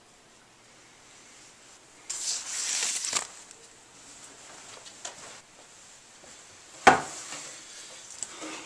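Handling noises: about a second of rustling starting two seconds in, a few light clicks, then one sharp knock near the end, the loudest sound.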